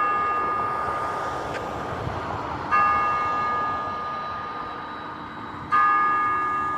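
Church bell striking the hour at six o'clock: three slow strokes about three seconds apart, each ringing on and fading before the next.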